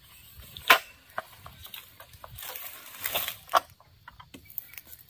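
Sharp woody cracks and knocks, the loudest about three-quarters of a second in, with a stretch of rustling around the middle, as an oil palm harvesting pole sickle cuts at palm fronds and stalks.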